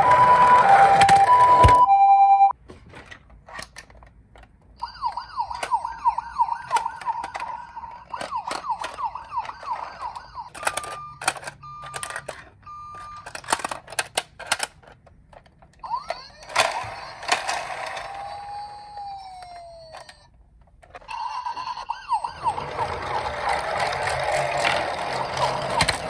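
Toy ambulances' electronic siren sounds: a two-tone "pee-po" siren alternating between two notes that cuts off about two and a half seconds in, then warbling siren effects and short repeated beeps mixed with clicks from handling the plastic toys. Another siren starts up near the end.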